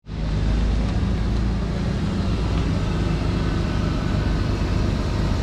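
BMW E36 3 Series sedan engine running steadily at low revs, a continuous low hum as the car rolls slowly on concrete.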